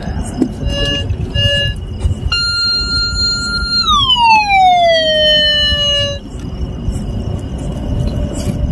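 Handheld treasure detector sounding electronic tones: two short beeps, then a long steady tone that glides down in pitch, holds at the lower note and cuts off. It is signalling a metal target, which the searchers read as silver and gold.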